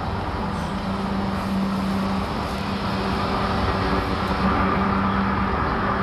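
A steady low drone over city traffic noise, with a higher tone joining about halfway: one of the unexplained droning 'strange sounds' reported over cities around 2011.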